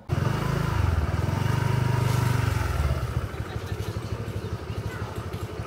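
A small engine running close by, with rapid even firing pulses. It starts abruptly, is loud for about three seconds, then continues more quietly.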